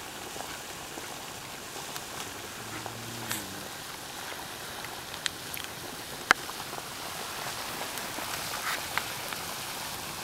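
Flat evaporator pan of maple sap boiling hard over a wood fire: a steady bubbling hiss with scattered sharp pops and crackles, the loudest pop about six seconds in.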